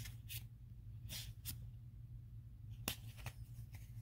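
Yu-Gi-Oh trading cards being slid and flicked through by hand: a few faint, short swishes and clicks, one sharper snap about three seconds in, over a low steady hum.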